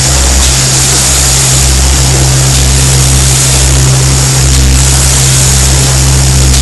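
Vibratory bowl feeder running: a steady electromagnetic hum with a dense, even rattling hiss of the small test-device parts shaking around the bowl.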